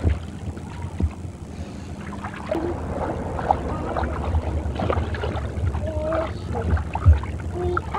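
Water splashing and sloshing as a child wades through a shallow wading pool, over a steady low rumble, with a few faint, distant children's voices.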